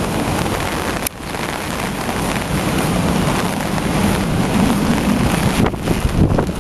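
Strong typhoon wind buffeting the microphone over the steady rush of a flooded, swollen river. The level drops sharply for a moment about a second in.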